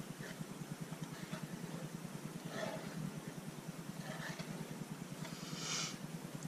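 A steady low hum with a fast flutter, with a few soft swishes about two and a half, four and near six seconds in as a plastic spreader is scraped through wet white paint on a canvas.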